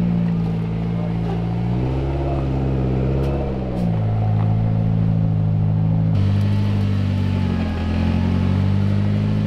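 Rock-crawling trial buggy's engine running at low revs under load as it climbs over rock. The revs rise for a second or two about two seconds in and drop back. The engine note changes abruptly about six seconds in.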